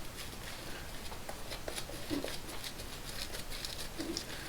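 Faint, quick scratchy strokes against stubbled skin during a wet shave, in a small room.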